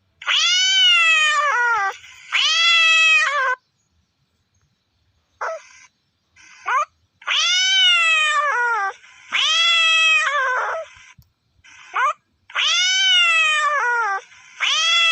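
A domestic cat meowing repeatedly: long, drawn-out meows that rise and then fall in pitch, mostly in pairs, with a few short meows between them.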